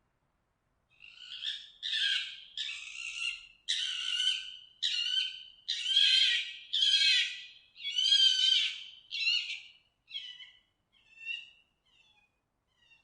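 A fox calling: a series of high, yelping calls, about one a second, that grow shorter and fainter near the end.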